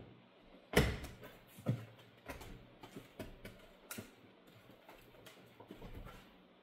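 Knocks and clicks of flat-pack kitchen cabinet panels being pushed and tapped into their snap-in connector clips: a sharp knock about a second in, another about a second later, then lighter taps and clicks.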